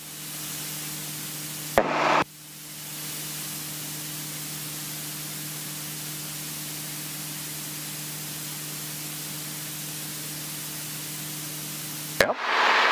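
Single-engine light aircraft's piston engine and propeller in cruise, heard from inside the cockpit as a steady hiss over an even low hum. A short louder burst comes about two seconds in and again near the end.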